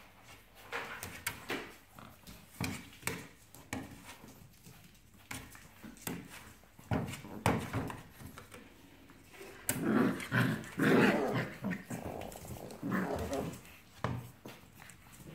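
Five-week-old Labrador puppies play-fighting and growling, loudest in a stretch about ten seconds in, with short clicks and scuffles of paws on the hard floor between the growls.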